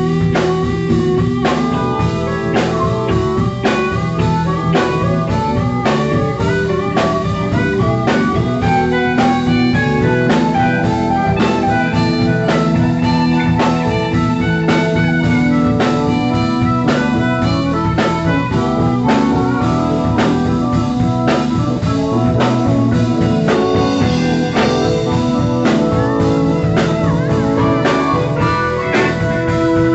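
Live blues band: a harmonica cupped to a microphone plays held and bending notes over electric guitar, with a drum kit keeping a steady beat.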